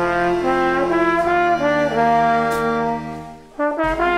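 Trombone playing a slow melody of held notes over soft guitar and string backing. Nearly everything drops out about three and a half seconds in, and the next phrase starts a moment later.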